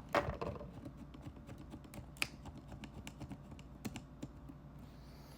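Small plastic clicks and taps from FPV goggle parts being handled and fitted together, with a sharper click just after the start and another about two seconds in.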